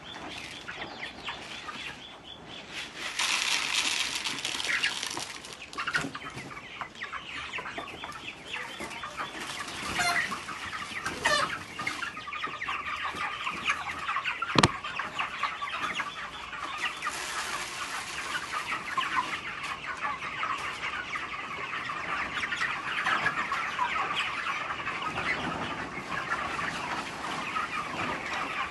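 A flock of chickens clucking, many birds calling at once in a steady chatter, with occasional wing-flapping and one sharp click about halfway through.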